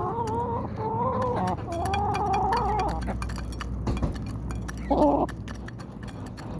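Chickens calling during feeding, with drawn-out wavering calls in the first three seconds and a short call about five seconds in. Scattered light clicks run underneath.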